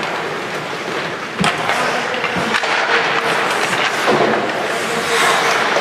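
Ice hockey play: skates scraping on the ice and sticks and puck clacking. A sharp knock comes about one and a half seconds in, with more knocks later.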